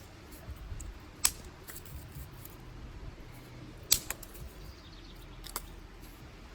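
Dry sticks snapping by hand: sharp cracks about a second in and near four seconds, the second followed at once by a smaller crack, and another near five and a half seconds, with a few faint crackles between.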